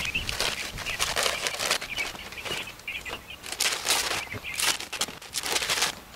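Masking tape and paper being peeled and torn off a freshly painted truck's windows: a string of short rips and crinkles. Birds chirp in the background.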